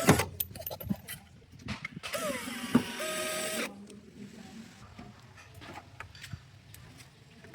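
Clicks and knocks of parts being handled, with a hissing mechanical whir that starts about two seconds in and stops after about a second and a half.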